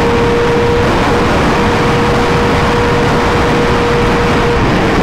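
Superbike riding at a steady speed, its engine holding one steady note under heavy wind rush on the microphone; the note breaks off near the end.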